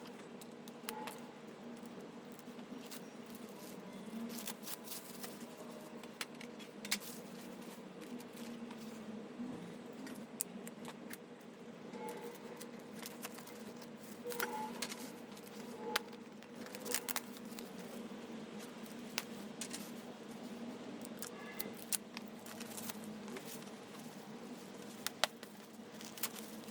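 Scattered light clicks and clinks, as of small metal parts being handled, over a steady low hum.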